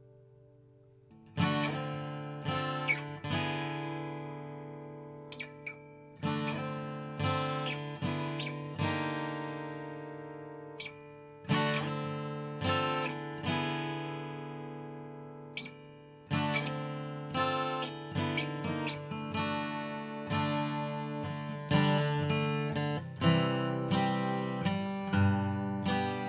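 Martin HD-28V dreadnought acoustic guitar, on its factory light 10–52 gauge strings, strummed in chords that ring out and fade between strokes, with a few sharp single plucks. A faint lingering chord dies away before the first strum about a second in.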